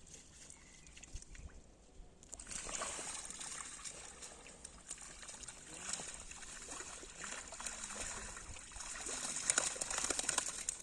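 Water trickling and splashing, starting suddenly about two seconds in as a steady spatter of many small drips and splashes that grows a little louder near the end.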